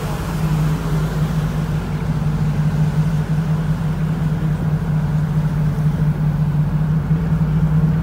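A vehicle's engine running at a steady speed: a constant low hum that holds one pitch, over a steady wash of running noise.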